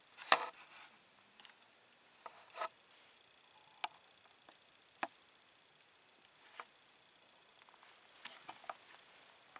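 Faint, steady, high-pitched insect trill in the woods, with scattered sharp close clicks and taps. The loudest click comes just under half a second in, and a few more come in quick succession near the end.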